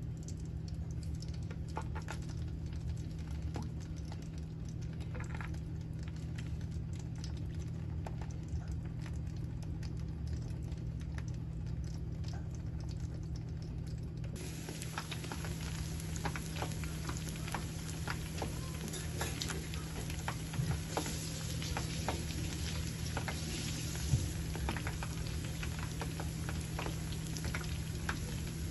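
Braided dough dumplings frying in shallow oil, sizzling with a steady patter of small crackles over a low steady hum. About halfway through the sizzle abruptly grows fuller and denser, with a couple of sharper pops near the end.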